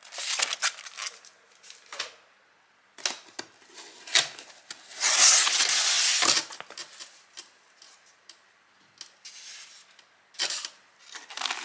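Plastic packaging being handled: crinkling and rustling in short bursts with scattered clicks and knocks, and a longer, louder stretch of rustling about five seconds in.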